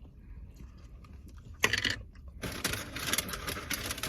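Takeout food packaging and utensils being handled close to the microphone: one sharp crackle about a second and a half in, then a dense run of crinkling clicks and rattles.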